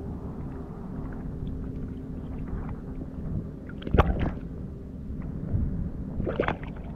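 Water sloshing and splashing right at an action camera held at the surface, with a sharp splash about four seconds in and a second burst of splashing near the end as a speared snook is lifted out of the water on the spear. A faint steady low hum runs underneath.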